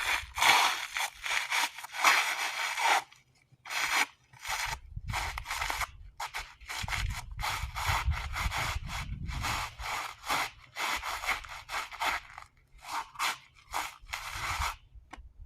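Footsteps crunching on loose gravel: a continuous grinding crunch for about the first three seconds as the feet twist on the spot, then a long run of separate crunching steps that stops shortly before the end.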